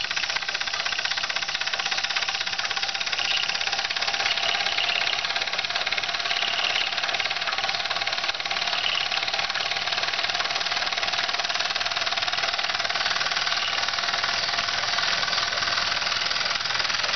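Mamod SE2a toy live steam engine running at a steady speed, a rapid, even ticking clatter from its cylinder and flywheel, with the string-driven toy windmill pump working along with it.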